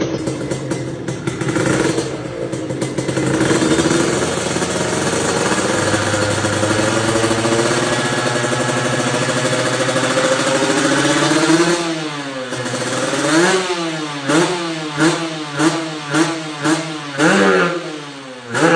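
Kawasaki Ninja motorcycle with a Win Speed aftermarket exhaust (knalpot) running steadily with a deep 'ngorok' (snoring) exhaust note. From about two-thirds of the way through, it is blipped in a quick run of throttle stabs, each one rising and falling in pitch.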